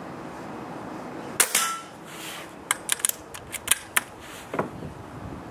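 A Brocock Compatto PCP air rifle fires a single shot, a sharp crack. About a second later its side-lever action is cycled to load the next pellet, giving a quick run of metallic clicks and then one more click.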